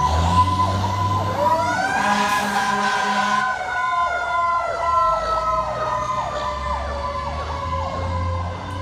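Siren of a 2001 Seagrave fire engine pulling away on a call: a rapid pulsing siren tone throughout, joined about a second in by a second siren tone that rises quickly and then slowly falls, over the low rumble of the truck's engine.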